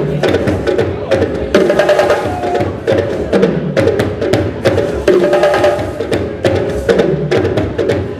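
Live music with rapid, steady percussion strokes and a sustained melody above them.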